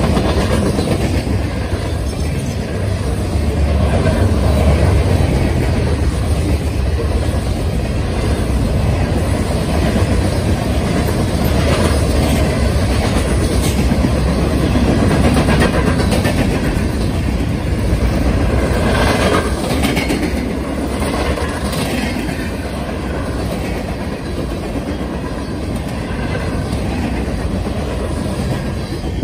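Freight cars of a Norfolk Southern train rolling by: a steady, loud rumble of steel wheels on rail, with clacks as the wheel sets cross the rail joints and the crossing. It eases slightly near the end.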